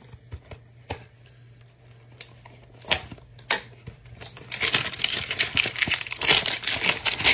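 Trading card pack being handled: scattered light clicks and taps, then from a little past halfway a dense crinkling of the pack's plastic wrapper, over a faint steady electrical hum.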